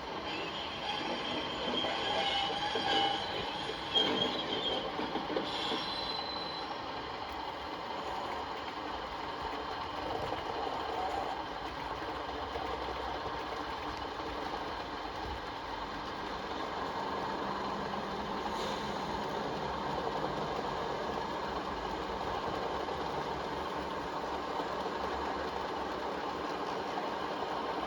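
Model railway train running on the layout track: a steady rolling hum of wheels on rails, with a high wheel squeal in the first few seconds and a click about four seconds in.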